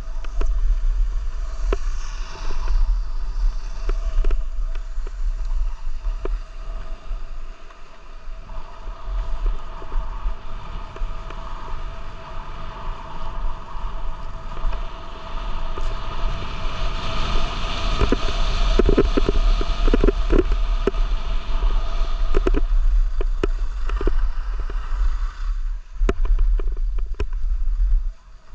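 Wind buffeting the microphone of a camera carried by a moving skier, with skis scraping over groomed snow. The scraping and clatter grow louder for several seconds past the middle.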